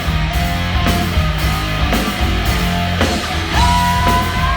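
Rock band playing live: electric guitar, bass and drums, with a long held high note coming in about three and a half seconds in.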